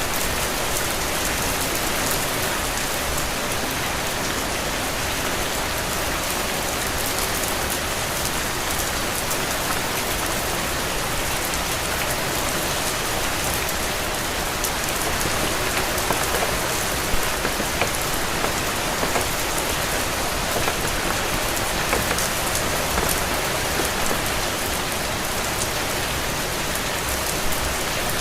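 Steady rain falling, a dense even hiss with scattered drops ticking, and a few louder drops now and then in the second half.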